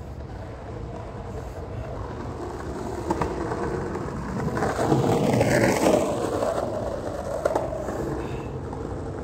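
A vehicle passing by: its road noise swells to a peak about halfway through and then fades, over a steady low rumble. There is a short click about three seconds in and another at about seven and a half.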